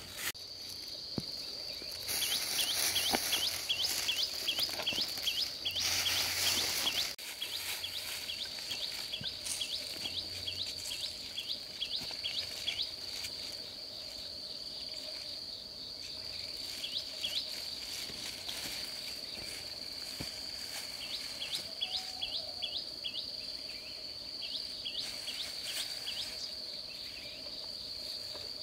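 Insects trilling steadily on one high note, with runs of quick repeated chirps coming and going. A few seconds of rustling or scraping noise, louder than the insects, come near the start.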